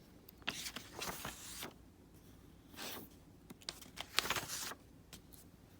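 Paper rustling and sliding as a picture book's pages are handled, in three short spells.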